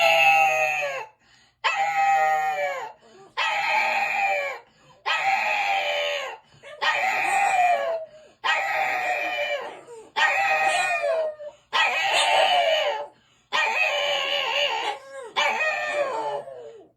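Dogs howling insistently to make their demands known: about ten drawn-out calls in a row, each lasting about a second and dropping in pitch at its start, with short gaps between.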